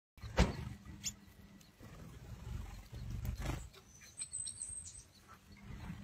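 Small finches and canaries at a seed dish giving a brief high peep about four seconds in, over a low rumbling noise with a few sharp knocks.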